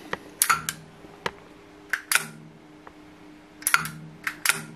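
Pushbutton switch, relay and the servo motor's electromagnetic brake clicking as the brake is switched on and off by hand, about ten sharp clicks, several in close pairs. A faint low hum comes and goes between the clicks.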